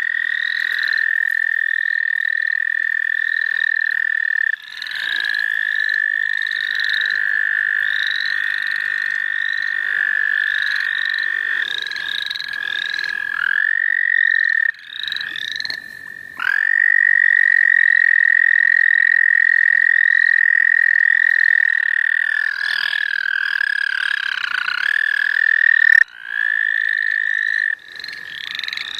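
A chorus of American toads giving long, steady, high trills. One close toad's trill grows loud about halfway through and holds for several seconds. Above them, other frogs give short rising calls over and over.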